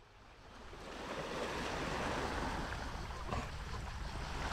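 Small waves washing onto a pebble shore, an even surf noise that fades in over the first two seconds and then holds steady.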